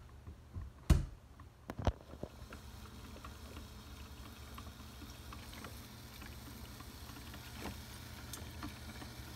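Two sharp knocks about a second apart, then a drip coffee maker running with a steady low hum and hiss as it starts brewing.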